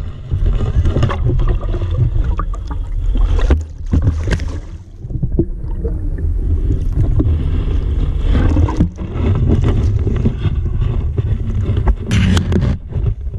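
Water splashing and sloshing around a small boat, with scattered knocks and clatter against the hull over a steady low rumble.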